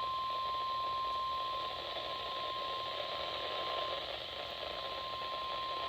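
NOAA Weather Radio 1050 Hz warning alarm tone: one steady, unwavering tone held the whole time over the hiss of radio static, the signal that a warning message is about to be broadcast.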